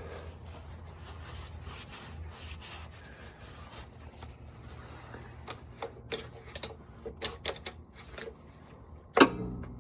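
Hand work on a 4L60E transmission's servo from under the car: scattered light metallic clicks and scraping as the servo parts are worked loose, with one sharp knock near the end. A steady low hum runs underneath.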